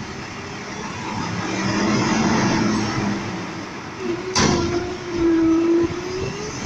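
Front-loading garbage truck's engine revving up to drive the hydraulic lift arms, with a loud metal clang about four seconds in as the forks lift the steel cardboard bin off the ground, then a steady hydraulic whine as the arms raise it.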